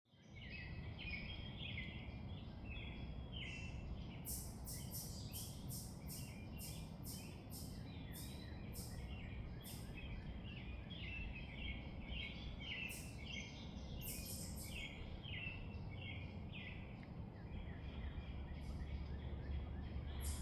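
Birds chirping over and over above a steady low rumble of outdoor background noise. It starts abruptly.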